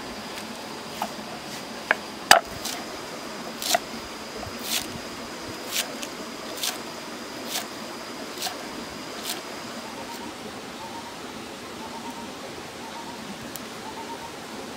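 Knife chopping green onions and garlic on a wooden chopping board: about ten slow, evenly spaced chops, roughly one a second, the loudest a couple of seconds in. The chopping stops about two-thirds of the way through, leaving a steady hiss with faint high chirps.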